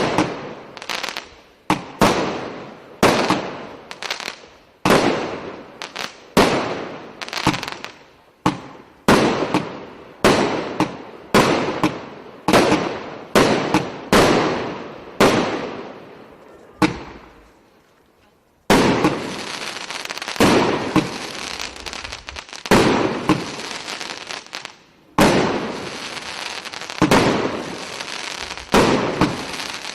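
A consumer fireworks battery (cake) firing shot after shot, a sharp bang about every three-quarters of a second. After a brief lull about 18 seconds in, it turns to dense continuous crackling with bangs on top.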